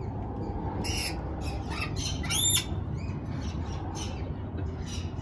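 Many birds calling with shrill squawks, short calls overlapping, with one louder arched call about two and a half seconds in.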